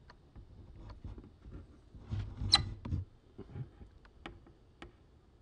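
A fingernail scratching and picking at the corner of a paper label stuck to bare wood, making small scrapes and clicks. A louder run of scratching comes about two seconds in, with one sharp tick in the middle of it.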